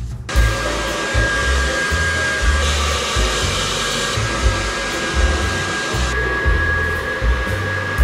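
Handheld hair dryer switched on a moment in, blowing a steady rush of air with a thin high whine, on wet hair; its sound shifts a few times as it is moved about the head.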